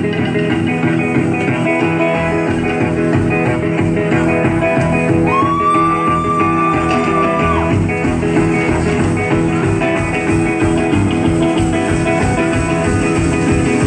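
Live rockabilly band playing an instrumental break: guitar over upright bass and a steady beat. About five seconds in, one long high note scoops up slightly and is held for over two seconds.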